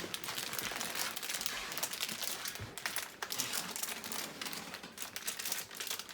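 Plastic packaging crinkling and rustling continuously as it is handled, in a dense run of fine crackles.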